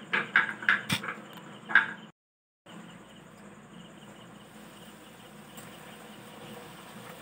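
A few short sounds and a sharp click in the first two seconds. After a brief break comes the steady sizzle of a bhatura deep-frying in hot oil in a kadai.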